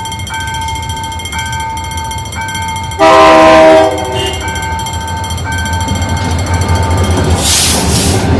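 Train horn sounding one loud blast of about a second, about three seconds in, over a two-tone beep that repeats about once a second. From about six seconds a low rumble grows as the train pulls away, with a short hiss near the end.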